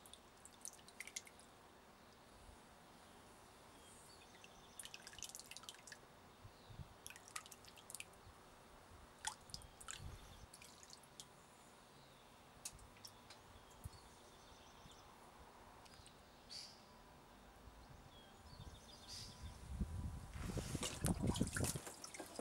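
Faint, scattered drips and small splashes of water in a papermaking vat as pulp settles in the mould and deckle. Near the end a louder, denser run of splashing and draining water as the frame is handled.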